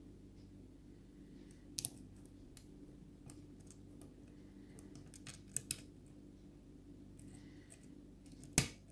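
Lock pick working the pins of a pin-tumbler lock under light tension: scattered small irregular clicks, many of them faint, which the picker takes for serrated pins. One sharp, louder click near the end, which he thinks was the pick slipping off a pin.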